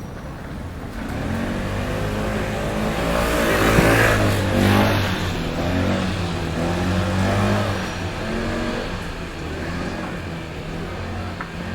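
A motor vehicle passing close by, its engine note rising and shifting in pitch as it approaches. It is loudest about four seconds in, then fades away as the vehicle moves off.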